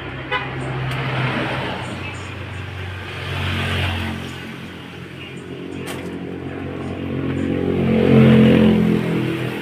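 Motor vehicle engines running in street traffic, swelling twice as vehicles go by, loudest near the end.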